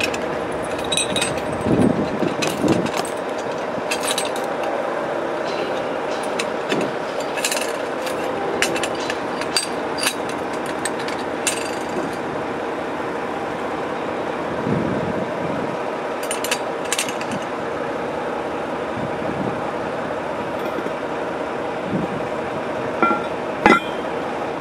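Scattered metal clinks and scrapes of a stainless steel lockout plate being fitted into a water valve box, over a steady mechanical hum. Near the end comes a single heavier metal clank as the cast iron lid is set in place.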